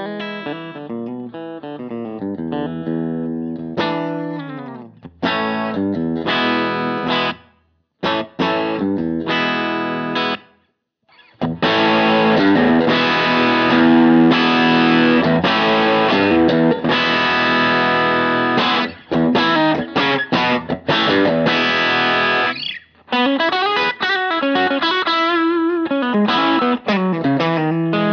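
Electric guitar on a Lambertones Crema bridge pickup, played through a pedalboard and amp. Picked phrases broken by short stops fill the first ten seconds or so, then comes about ten seconds of louder, sustained chords, and picked notes return near the end.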